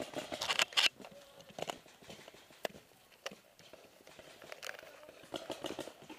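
Scattered sharp pops and clicks from a paintball game, with a cluster in the first second and another near the end, over low rustling and crunching of brush and gravel as the player shifts behind cover.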